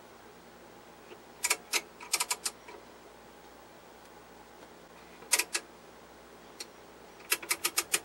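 Sharp clicks from the front-panel knobs and switches of a Tektronix 465 oscilloscope as its controls are worked: a quick run of clicks about a second and a half in, two more around five seconds, one at six and a half, and a fast run of about six near the end.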